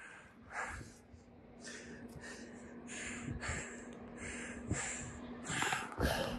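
A person breathing in short, quick puffs close to the microphone, two or three a second.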